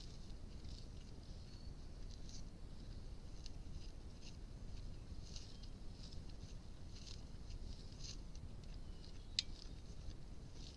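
Black bear grazing close by: irregular soft crackling as it tears and chews grass, over steady low background noise, with one sharp click about nine seconds in.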